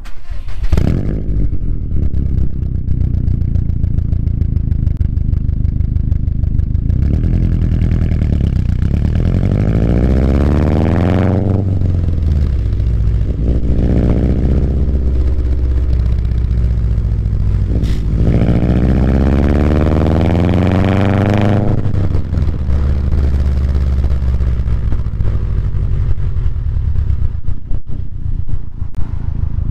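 Subaru WRX STI's turbocharged flat-four exhaust through an ETS quiet muffler with no resonator, idling and then revved three times. Two long climbs of several seconds and a shorter one between them each fall back to idle.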